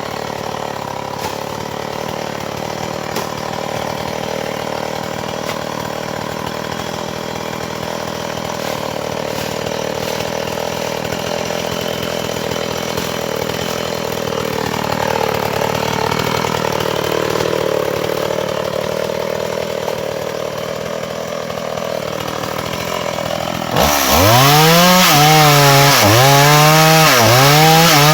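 Chainsaw running steadily while cutting a fallen dry log. About 24 seconds in it gets much louder, and its pitch dips and recovers roughly once a second as the chain bites into the wood.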